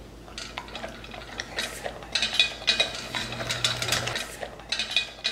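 Dog eating meat scraps from a bowl in a raised metal feeder stand: irregular clinking and clattering of the bowl as the dog's muzzle and teeth knock it while it eats.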